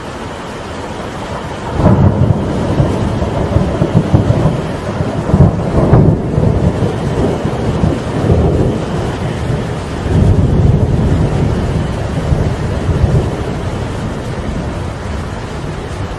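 Steady rain with a long roll of thunder that breaks in about two seconds in, rumbling in several swells before dying away near the end.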